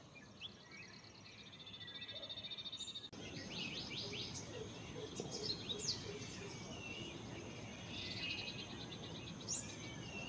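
Small birds chirping, with short sharp calls that sweep down in pitch, over a rapid pulsing high trill. The background changes abruptly about three seconds in, and the chirping grows busier after it.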